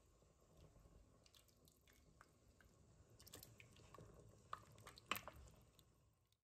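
Near silence, with a few faint wet clicks and taps from a ladle stirring thick, creamy soup in an Instant Pot's stainless steel inner pot, the clearest about five seconds in.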